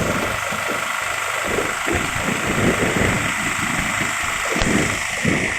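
Motorcycle engine running with wind rumbling over an SJCAM SJ10X action camera's microphone, under a steady high whine. The sound is thin and uneven, which the uploader blames on the camera's noise-reduction software.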